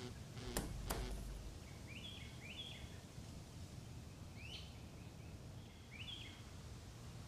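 Faint chirps of small birds, four or five short calls spread over a few seconds, over a low background hiss. Two sharp clicks with a soft low thud come just under a second in.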